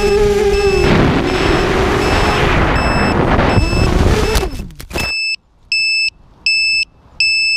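ZMR250 FPV racing quadcopter's motors whining, then a rush of air and a falling pitch as it tumbles down; the motors cut out about five seconds in. After that, a high electronic beeper sounds in short, evenly spaced beeps, about one every three-quarters of a second.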